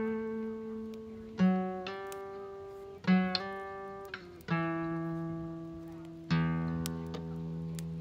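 Background music: acoustic guitar chords, each strummed and left to ring out and fade.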